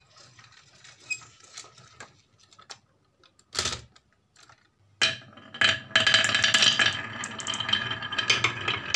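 Light clicks of a toy truck being handled, with a short scrape about three and a half seconds in, then from about five seconds a sudden, steady clatter of many marbles rolling and knocking against each other in the curved grooves of a wooden wave-shaped slope.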